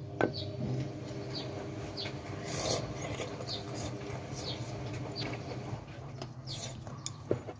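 Close-up eating sounds of a person chewing and slurping noodles, with a sharp click of chopsticks against a ceramic bowl just after the start. Short high chirps repeat through it over a steady low hum.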